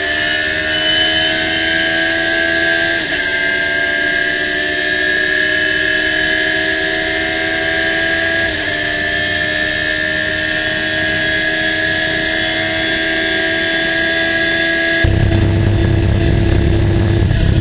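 Radical SR3's motorcycle-derived four-cylinder engine at full throttle, heard from onboard, revving at about 9,000 to 10,000 rpm. Quick upshifts come about three seconds and eight and a half seconds in, each briefly dropping the pitch before it climbs again. Near the end a deeper rumble swells under the engine.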